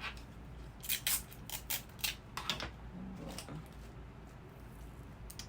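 Clear adhesive tape being pulled off a roll and torn: a quick run of short, sharp ripping sounds about one to two and a half seconds in, followed by softer handling sounds.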